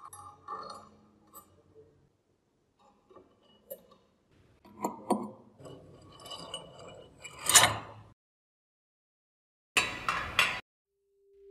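Loose iron and brass parts of an antique padlock being handled and fitted together: scattered clinks and scrapes of metal on metal, the loudest a little past halfway. A brief rustling comes near the end.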